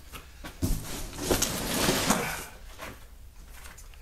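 A knock, then about two seconds of rustling and scraping from the packed inflatable catamaran's heavy fabric carry bag being handled.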